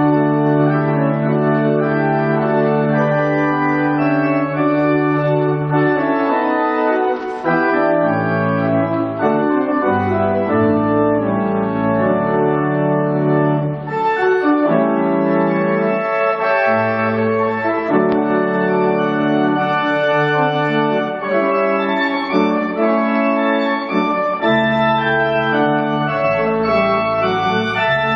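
Organ playing sustained chords with a moving bass line, the chords changing every second or two.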